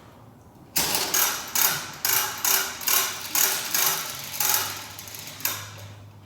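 Ratchet wrench worked in about a dozen quick strokes, roughly two a second, each stroke a burst of ratcheting clicks. It starts about a second in and stops shortly before the end.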